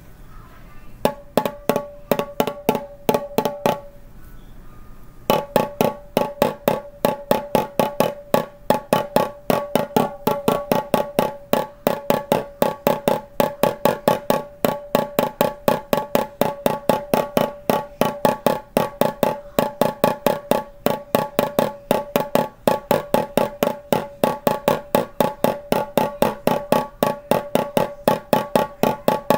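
Drum beaten by hand: a few spaced strokes, a short pause about four seconds in, then a steady even beat of about four strokes a second, each stroke with a short pitched ring.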